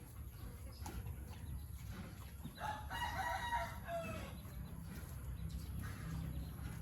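A rooster crowing once, a call of about a second and a half that starts near the middle and falls in pitch at its end.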